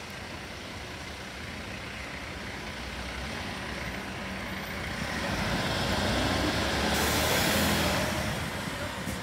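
Rear-loader recycling truck's diesel engine running and growing louder as the truck backs in close. About seven seconds in, a hiss of air brakes lasts a little over a second.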